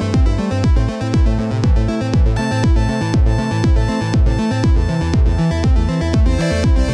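Electronic dance music with a steady kick drum about two beats a second under sustained synth chords.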